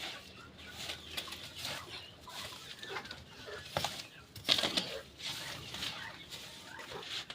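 Chickens and chicks calling in a poultry house, with scattered rustling and a couple of sharp knocks near the middle.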